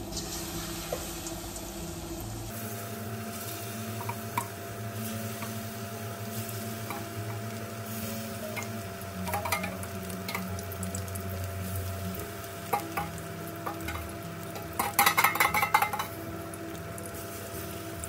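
Flour-battered tofu frying in hot oil in a wok, a steady sizzle, with a metal spoon clicking against the wok and steel bowl as pieces are added. A quick run of loud metal clinks comes near the end.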